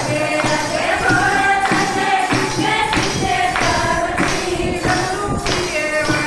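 Voices singing a Hindi devotional bhajan to a steady percussion beat.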